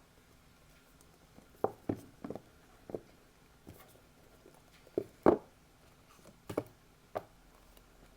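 Irregular taps, clicks and knocks of small items and packaging being handled, about a dozen in all, the loudest a pair of knocks about five seconds in.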